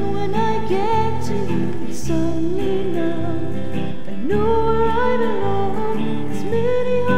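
A slow song with guitar accompaniment and a melody line that slides and wavers in pitch over bass notes changing about once a second.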